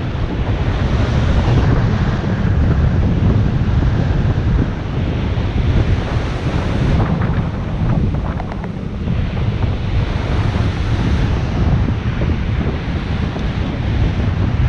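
Wind buffeting the action camera's microphone as a bicycle rides at about 15 km/h, a steady heavy rumble, with surf washing onto the beach behind it.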